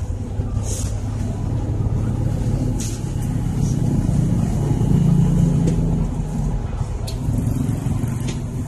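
Bus engine running and road noise heard from inside the bus cabin while driving. The engine drone swells for a couple of seconds in the middle, with a few short high hisses over it.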